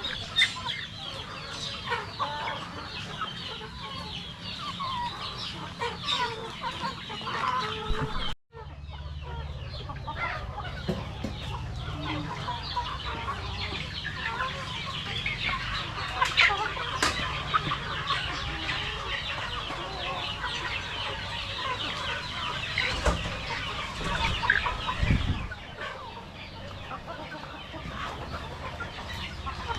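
A flock of Rhode Island Red chickens clucking and calling continuously, with a brief dropout about eight seconds in.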